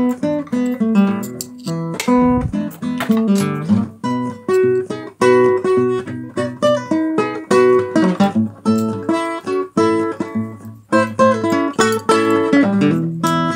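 Background music: a guitar picking a quick run of single notes.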